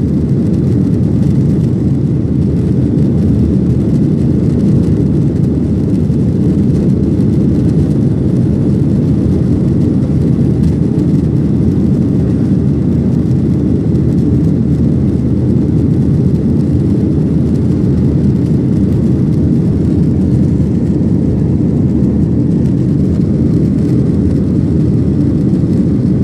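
Boeing 737-800's CFM56-7B jet engines at take-off power, heard from inside the cabin as a steady, loud low rumble mixed with rushing air.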